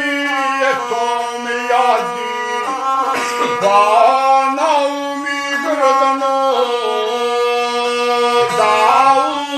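A guslar singing an epic folk song and accompanying himself on the gusle, a single-string bowed fiddle. The gusle holds a steady low tone under a wavering, gliding vocal line.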